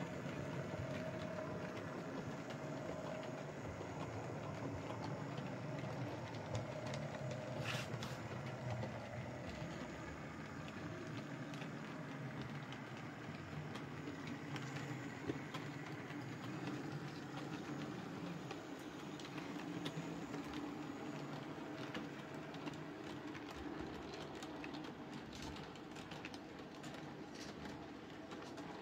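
Rivarossi H0-scale Pt 3/6 steam tank locomotive model running on Märklin M-track: a steady motor hum with many small ticks from the wheels and pickup on the metal track, and a sharp click about 8 s in. It grows slightly fainter near the end as the train runs away.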